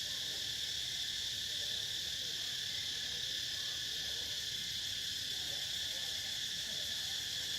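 Steady chorus of insects in the forest canopy: a continuous high-pitched drone that stays even throughout.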